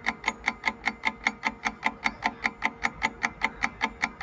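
Clock-tick countdown sound effect, ticking evenly at about four ticks a second while the time to answer a quiz question runs down.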